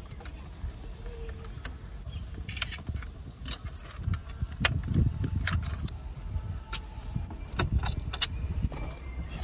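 Scattered sharp clicks and light rattles of plastic dashboard trim and a car's centre-console control panel being handled and lifted out of the dash.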